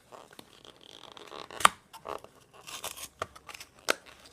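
Fingers picking and prying at the tear tab of a cardboard trading-card box: cardboard scratching and scraping, with a few sharp clicks, the loudest just under two seconds in.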